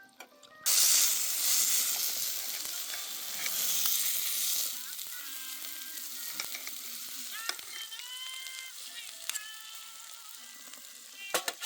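Food sizzling on a hot cooking stone: a loud sizzle that starts suddenly under a second in, as the food meets the stone, and then slowly eases off.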